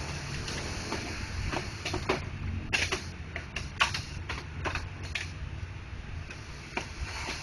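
Irregular clicks and light knocks from a printer's plastic parts being handled, over a steady low hum.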